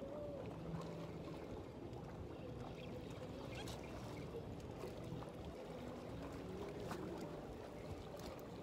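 Faint steady drone of a passing motorboat's engine, with water and wind noise and a few small clicks.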